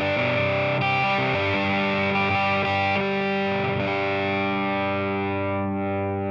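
Electric guitar played through a Ramble FX Marvel Drive, a Marshall-style overdrive pedal: a crunchy distorted chord riff with several chord changes, ending on a chord held from about four seconds in and left to ring out, slowly fading.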